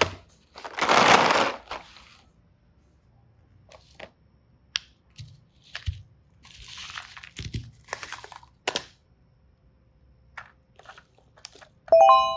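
Crinkling and rustling of packaging being handled, with scattered sharp clicks and taps. A bright chime rings out near the end.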